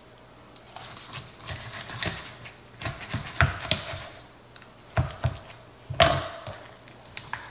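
Kitchen shears cutting the backbone out of a raw whole chicken: irregular snips and crunching cracks of the blades closing through bone, a few of them sharply louder than the rest.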